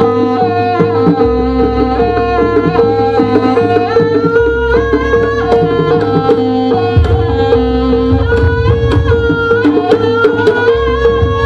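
Jaranan gamelan music: hand drums play a busy rhythm under a stepping melody line and a steady held note. Deeper drum beats come in about seven seconds in.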